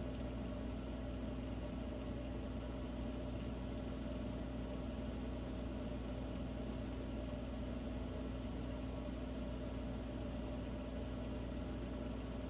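Air conditioner running with a steady hum made of several held tones over a low rushing noise, the odd sound that is likened to Darth Vader talking real quietly.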